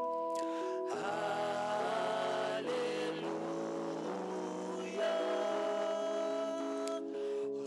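A man singing a slow worship hymn into a microphone over sustained chords on a Yamaha electronic keyboard. The voice comes in about a second in and sings in phrases with short breaks between them.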